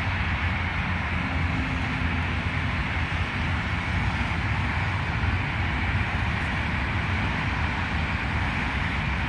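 Steady noise of road traffic, cars and vans running along a multi-lane road, a continuous rumble without separate events.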